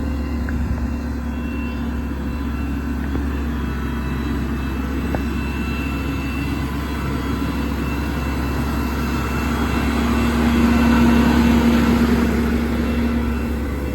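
Ford F550's 6.8-litre V10 engine running steadily, with a steady hum that swells louder for a couple of seconds near the end.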